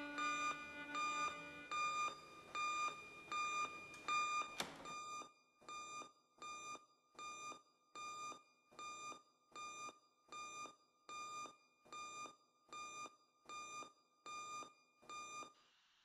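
Electronic alarm beeping in an even rhythm, a little more than once a second, each beep a bright tone. About four and a half seconds in a door shuts with a single knock, and from then on the beeping is fainter and muffled, as if behind the door, until it stops just before the end.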